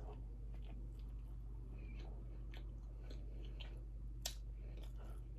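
A person chewing a mouthful of buttered tiger bread, with small scattered mouth clicks and one sharper click a little after four seconds in.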